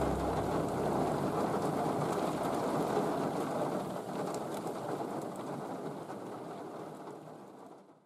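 Steady rain falling on shallow wetland water, with a faint patter of individual drops; it fades out over the last few seconds.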